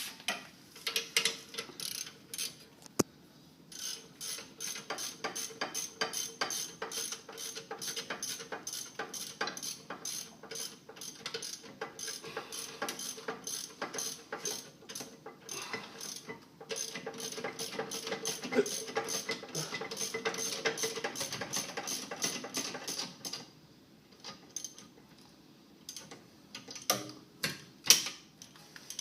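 Ratchet wrench clicking in long, rapid runs as bolts are run in on a brake caliper, with a couple of short pauses. A few scattered clicks and knocks follow near the end.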